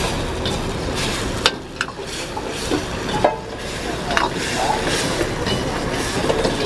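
Metal ladle scraping and clacking against a steel wok as cream manchurian is stir-fried over a gas flame, with sizzling throughout. The ladle strikes come irregularly, several times a second at times.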